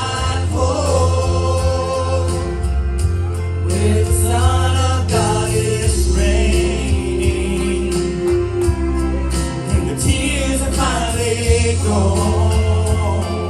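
Gospel music from a praise team: singing voices over a band with a strong bass line.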